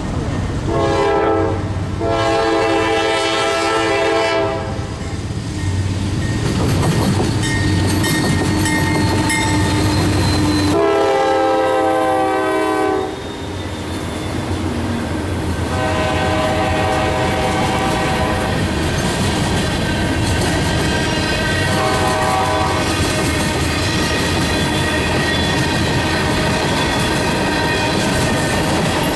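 GE Dash 9-40CW diesel locomotive's air horn sounding for a grade crossing: a short blast, then long blasts, over the steady rumble of the diesel engines. The locomotives pass, and the loaded freight cars roll by with a clickety-clack of wheels on the rails.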